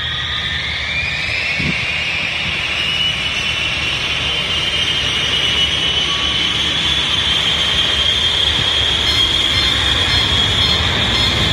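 Airliner jet engines spooling up, heard from inside the cabin: a whine that rises in pitch over the first few seconds and then holds steady, over a low rumble that slowly grows louder as thrust builds.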